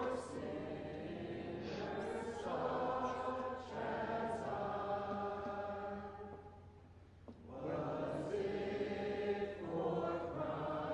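Choir singing long held chords, dying down briefly about two-thirds of the way through and then swelling again.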